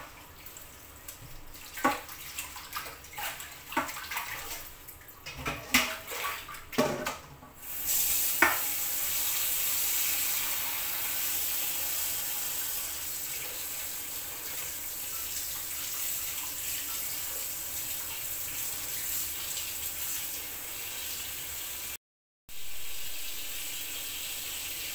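Hands swishing kale leaves around in a stainless steel bowl, with irregular splashes and knocks. About eight seconds in, the kitchen mixer tap is turned on and a steady stream of water pours onto the leaves in the bowl, cutting out briefly twice near the end.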